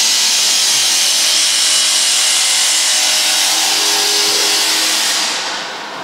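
Steady, loud rush of air hissing from the vacuum membrane press, fading away near the end.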